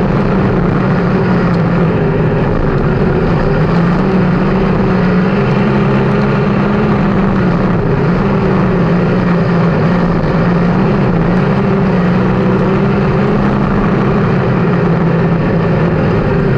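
360 sprint cars' V8 engines running flat out during a dirt-track race: a loud, steady engine drone whose pitch wavers slightly up and down.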